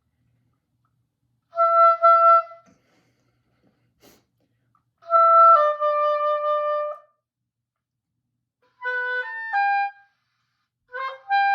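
Oboe playing short phrases broken by pauses: a repeated note, then two long notes stepping down, then a quick run of several notes, and near the end another phrase settling onto a held note.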